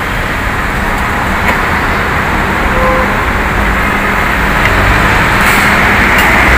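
Steady road vehicle noise: a low engine rumble under a constant hiss, growing slightly louder near the end.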